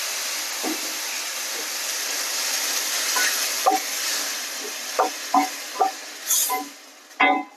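Tomato puree sizzling as it hits a hot stainless steel pan with ghee, pasta and corn, the steady sizzle dying down near the end. From about halfway through, a wooden spatula scrapes and knocks against the pan as the mixture is stirred.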